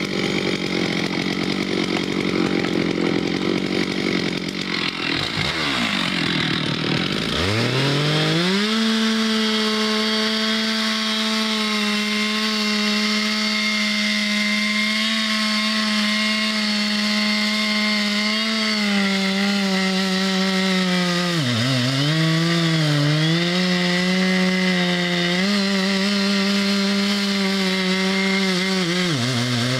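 Chainsaw running rough and uneven, then climbing to full throttle about eight seconds in as it cuts into the base of a large poplar trunk. It then holds a steady high engine note, which sags briefly twice as the saw labours in the cut.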